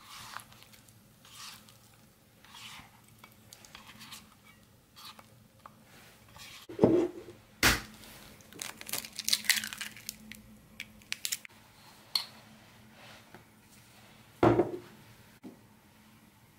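A utensil scraping grated raw potato out of a ceramic dish into a bowl of minced meat. Soft wet scrapes come first, then two sharp knocks against the dishes and a run of quick scrapes and clicks. One more sharp knock near the end is an egg being cracked on the bowl.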